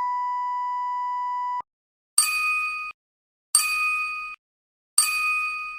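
Electronic beep tones: a long steady beep ends about a second and a half in, followed by three shorter, higher beeps about a second and a half apart.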